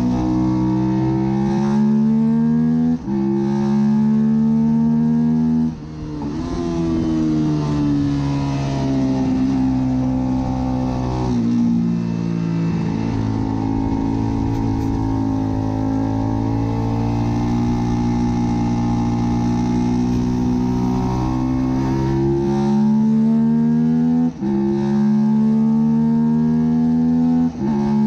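Suzuki SV650 90-degree V-twin race bike engine at hard throttle. The pitch climbs through each gear and drops sharply at the upshifts, about 3 and 6 seconds in and twice near the end. In the middle it winds down and holds steadier for a while.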